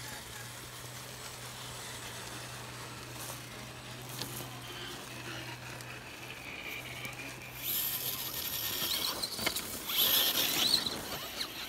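Small electric motors and gear trains of RC scale rock crawlers whining as the trucks crawl over dirt and pine needles, growing louder about eight seconds in as they come close.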